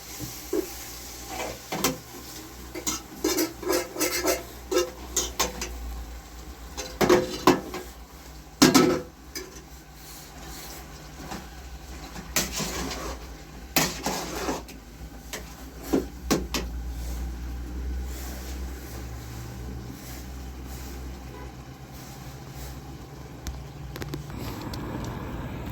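Clattering knocks and clinks of handled objects, coming in quick runs through the first half and thinning out after, over a steady low hum.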